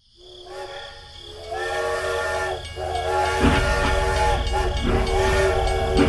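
A steady horn-like whistle tone made of several notes at once, sounded in about five long blasts of roughly a second each. A low engine-like rumble joins underneath about halfway through.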